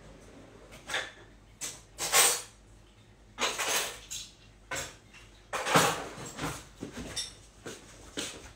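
A series of short, irregular rustling and clattering noises of things being handled, the loudest about two seconds in and again near six seconds in.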